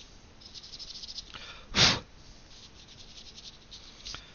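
Light scratchy rubbing and ticking from work on a MacBook Pro's cooling fan, with one loud, short rush of air-like noise about two seconds in.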